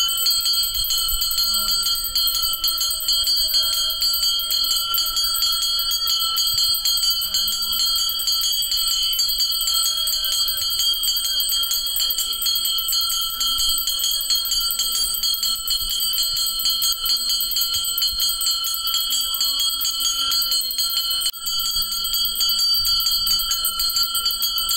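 Puja hand bell rung rapidly and without a break to accompany the waving of the aarti lamp, its ringing tones held steady, with voices faint underneath.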